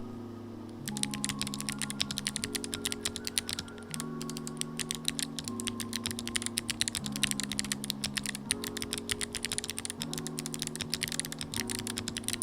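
Fast typing on an Akko ACR Pro 75 mechanical keyboard with stock Kailh Box Jade clicky switches: a dense, rapid run of sharp key clicks that starts about a second in. Background music with slowly changing chords plays underneath.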